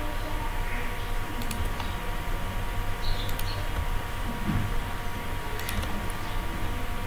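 A few scattered computer mouse clicks over a steady electrical hum and low background rumble from the recording microphone.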